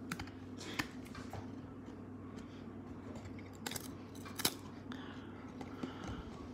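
Glossy trading cards being handled and flipped through by hand, soft card-on-card sliding with a scattering of sharp little clicks, the loudest about halfway through.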